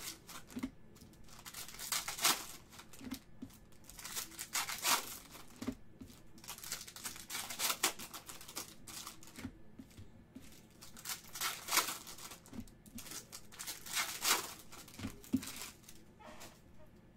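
Foil trading-card pack wrappers being torn open and crinkled by hand, in crackling bursts of about a second every few seconds.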